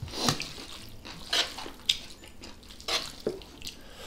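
Short wet, sticky clicks and smacks, about five of them spread out, from sauce-coated Chapagetti noodles being lifted from a pan with metal tongs and eaten with chopsticks.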